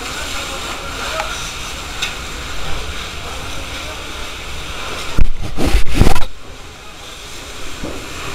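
Steady rushing noise of a fire hose spraying water at a burning building. About five seconds in, a loud cluster of knocks and rumble lasts about a second.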